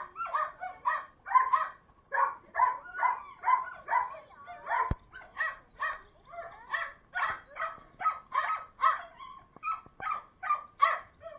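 Dogs barking over and over, about two to three barks a second, with a single sharp click about five seconds in.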